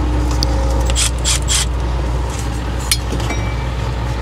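A metal turbo pipe being worked loose from its hose connections by hand: short scraping, rubbing bursts and light clinks about a second in and again near three seconds, over a steady low hum.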